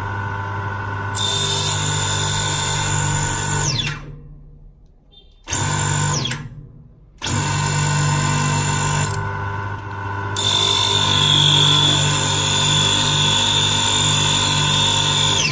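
Jewelry lathe motor spinning a ring in its collet while a milgrain wheel is pressed against the ring's edge to roll a beaded border. The steady motor tone stops and winds down about four seconds in, runs briefly again, and restarts about seven seconds in; a high hissing whine joins it in two stretches, while the wheel bears on the ring.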